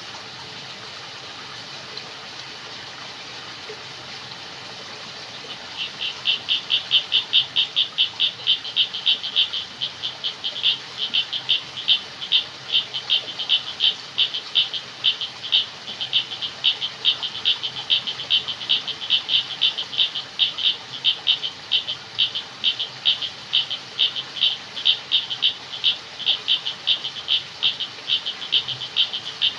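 A frog calling in rapid, evenly repeated pulses, about three a second, starting about six seconds in and going on steadily, over a faint steady background hiss.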